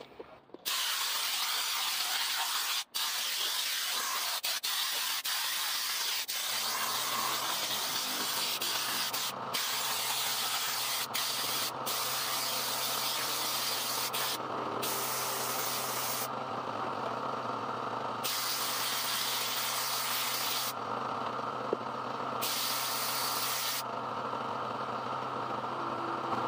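Water spraying hard in a jet onto a scooter's bodywork, an even hiss that starts under a second in and whose sharp top drops away several times in the second half. Beneath it a steady motor hum sets in about six seconds in.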